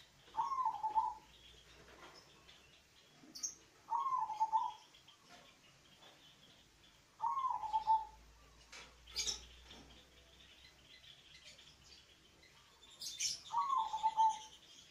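Zebra dove (perkutut) cooing: four short coo phrases several seconds apart, each a quick higher note dropping into a brief rolling lower coo. A few short, sharp high clicks fall between the phrases.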